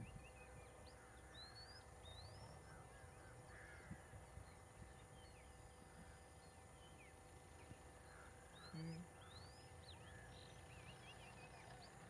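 Near silence, outdoors: faint scattered bird calls, short rising whistles and chirps, with a brief low sound about nine seconds in.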